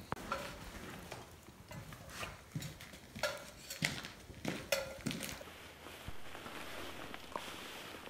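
Light, scattered clinks and scrapes of cutlery and cookware during a meal at a campfire grill, busiest in the middle few seconds.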